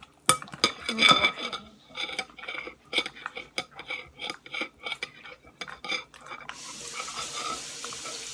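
Sticky slime being stirred and squished in a bowl: dense, irregular wet clicks and crackles. About two-thirds of the way through, a steady hiss starts and carries on.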